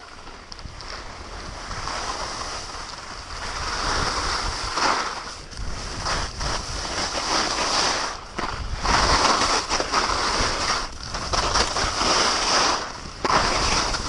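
Skis scraping and carving over snow at speed, with wind buffeting the microphone. The hiss builds over the first few seconds, then swells and dips briefly every second or two as the skier links turns.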